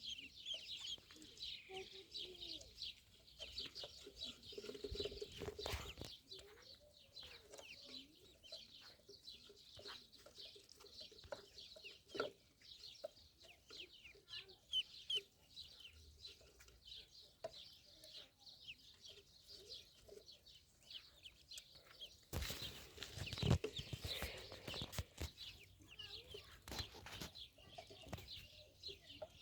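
A group of ducklings peeping: many short, high peeps overlapping without pause. A burst of rustling and knocks sounds about three quarters of the way through.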